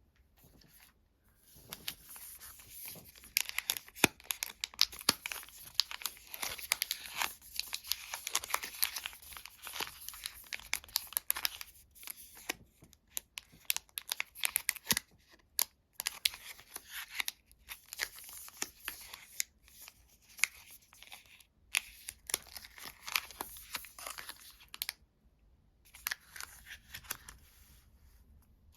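Sweet and chocolate wrappers being torn open and crinkled by hand: a dense run of crackles and sharp rips with brief pauses, including a short break a few seconds before the end.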